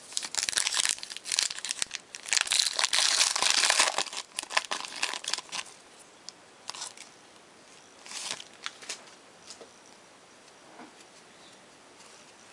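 Silver foil trading-card pack being torn open and crinkled, loudest a couple of seconds in, then dying away to a few faint rustles as the cards are handled.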